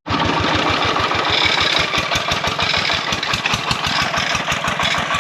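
A small engine running steadily close by, with a rapid, even chugging of about ten beats a second.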